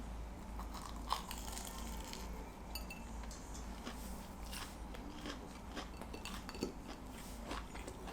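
A person eating: bites and crunchy chewing, with a sharp tap about a second in.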